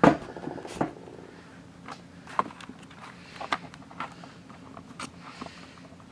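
Handling noises as a camera is repositioned: a loud knock at the start, then scattered lighter clicks and taps.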